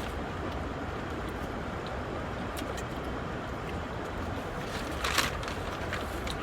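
Someone chewing a bite of a fried chicken sandwich over a steady low rumble, with faint clicks and a brief crackle about five seconds in.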